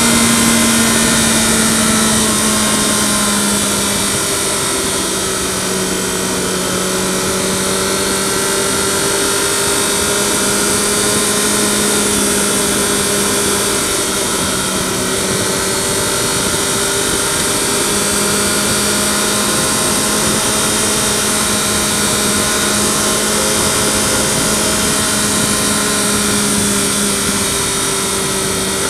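Yamaha FZ6R's inline-four engine running steadily at cruising speed, its pitch dipping slightly a few seconds in and rising again later, with a steady hiss of wind noise picked up by a microphone mounted behind the fairing.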